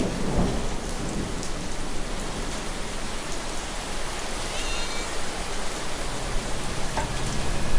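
Steady heavy rain, an even hiss of rainfall throughout.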